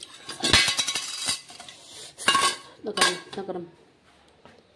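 Metal kitchenware clattering as a hot aluminium cake tin is handled with a wire pan gripper: a quick run of clinks and knocks over the first second and a half, then a few single louder clanks around two to three seconds in.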